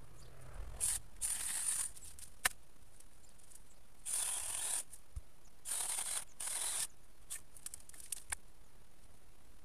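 Hand pruning saw cutting through hazel stems at the base of a coppice stool, in a few short bursts of rasping strokes, two of them back to back. A few sharp clicks and snaps of wood come in between.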